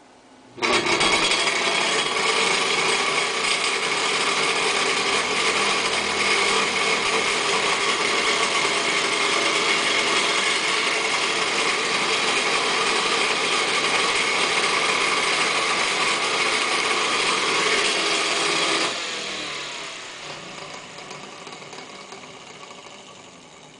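A 1920s Polar Cub electric desk fan starting up with a sudden, loud, steady mechanical whir. About nineteen seconds in the sound starts to die away gradually as the fan winds down.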